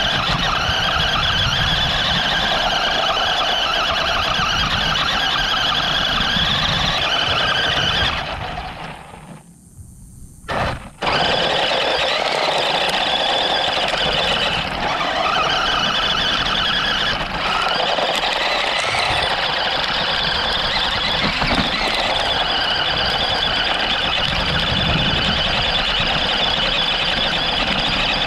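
RC car's motor and drivetrain whining at high pitch as it drives and spins in loose sand. It fades out for about two seconds around a third of the way in, then picks up again abruptly.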